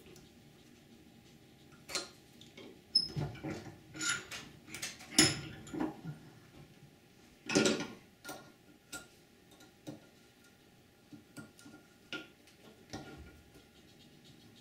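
Stiff steel leader wire being bent and twisted by hand into an eye at a bench vise: irregular small clicks, ticks and scrapes of wire on metal, with louder scrapes about five and eight seconds in, then only sparse ticks.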